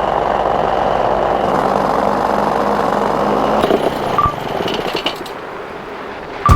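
Paramotor engine and propeller running steadily in flight, with air rushing past the microphone; the sound drops noticeably quieter a little over halfway through.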